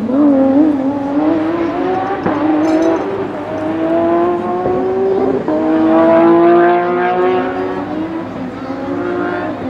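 Porsche 997 GT3 rally car's 3.6-litre flat-six accelerating up through the gears, its note climbing steadily with quick sequential-gearbox upshifts about two and five and a half seconds in, then fading near the end.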